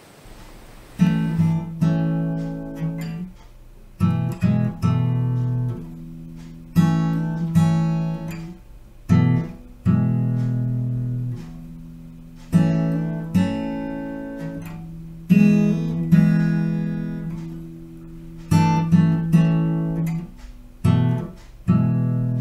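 Background music of an acoustic guitar strumming chords, each chord struck and left to ring and fade, a new one every two to three seconds.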